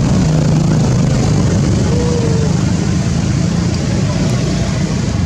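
A motor engine running steadily, a low hum under a constant haze of noise.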